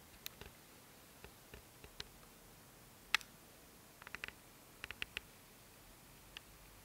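Scattered small, sharp clicks over a quiet steady hiss, one louder click about three seconds in and quick little clusters of clicks around four and five seconds in.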